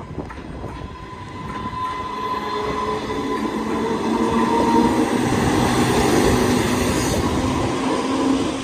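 Train approaching and passing, its running noise growing louder from about two seconds in, with a few steady pitched tones over the rumble.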